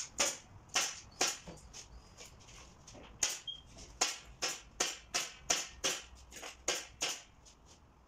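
Pneumatic nail gun fastening asphalt roof shingles to a wooden roof, firing a quick series of sharp shots, about two or three a second, with a short pause before the second run.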